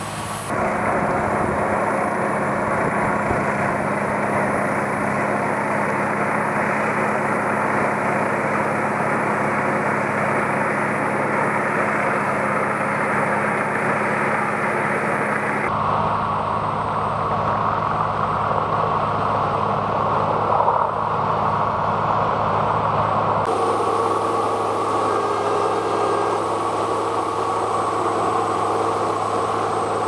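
Peterson 5000H whole-tree chipper running steadily: a continuous heavy diesel machine drone with a low steady hum. The tone of the drone changes abruptly twice, about halfway through and again some eight seconds later.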